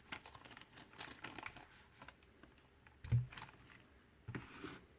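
Plastic packaging crinkling and rustling with small clicks as it is handled, and one dull thump about three seconds in.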